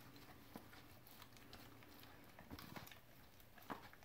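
Faint sounds of a Siberian husky eating a rotisserie chicken from a plastic tray: a few soft clicks, one about half a second in, a small cluster around two and a half seconds and another near the end.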